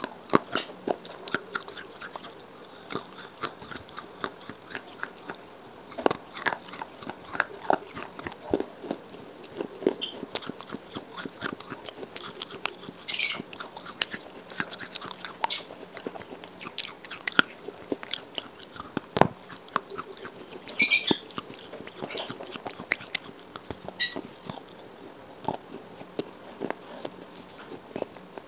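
Close-miked biting and chewing of dry baked clay pieces: irregular sharp crunches and crackles throughout.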